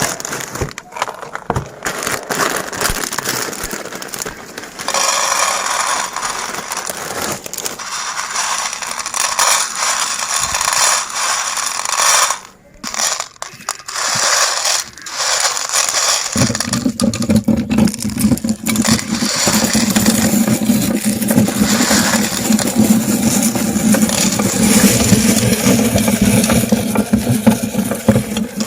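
Meat grinder crushing and grinding chocolate candies: a dense crackling, ratcheting mechanical clatter. A steady low hum joins in abruptly just over halfway.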